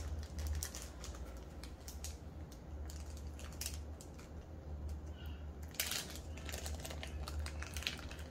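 Faint handling noises: scattered light clicks and rustles as a set of pistol sights and their packaging are picked up and handled, with one sharper click about six seconds in. A low steady hum runs underneath.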